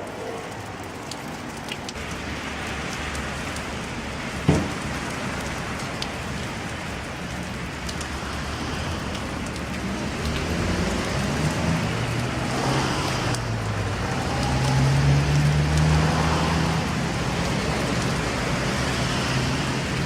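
Steady outdoor hiss with a motor vehicle's engine running, louder in the second half as its low note shifts in pitch; a single sharp knock about four and a half seconds in.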